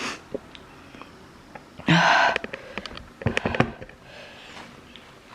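A person's breathy sniffs and a sharp exhale through a nose that is running from very spicy noodles, with a cluster of short clicks and noisy bursts a little past the middle.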